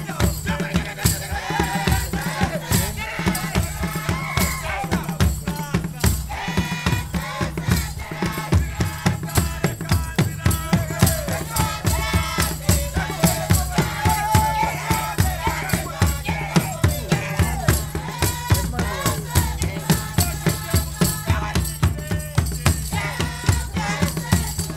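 Rwandan dance music: drums beating a steady, fast rhythm with rattles shaking along and voices singing over them.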